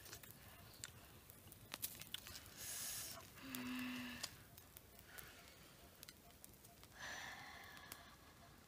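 Near silence: faint outdoor background with scattered soft clicks and a couple of brief hissy sounds.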